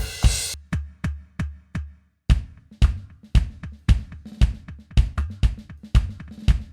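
Yamaha DTX700K electronic drum kit played through its sound module: a splashy hit and a few ringing strokes, a brief stop about two seconds in, then a steady drum beat with regular low kick-drum hits.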